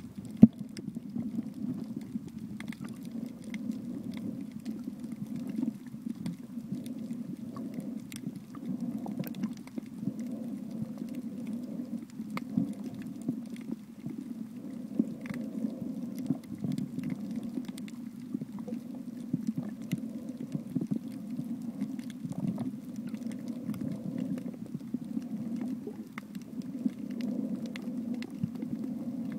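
Underwater ambience picked up by a submerged camera: a steady, muffled low rumble of moving water with scattered sharp clicks and crackles, and one loud knock about half a second in.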